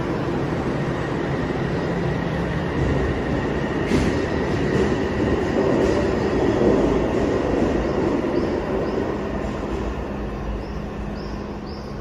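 An Odakyu 3000-series electric commuter train pulls out of an underground platform and runs off into the tunnel. Its running noise builds to a peak about halfway through and then fades, with a sharp click about four seconds in and a few short wheel squeals near the end.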